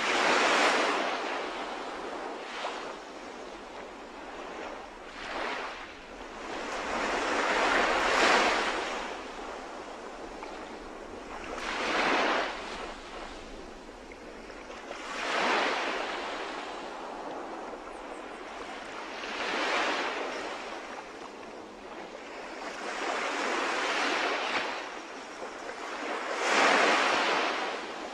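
Sea waves breaking on a shore: a steady wash of surf that swells into a loud surge about every three to four seconds.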